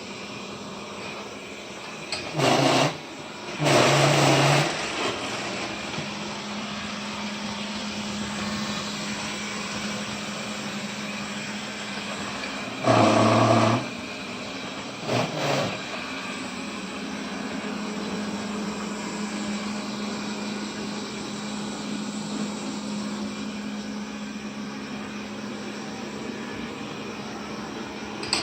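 Vacuum cleaner motor running steadily with a constant hum, with four brief louder surges about two, four, thirteen and fifteen seconds in.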